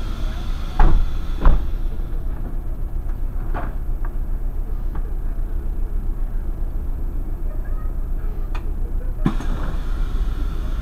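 Irisbus Crossway LE city bus running, its engine and drivetrain a steady low rumble, with two loud knocks about a second in and a few lighter clicks and rattles later.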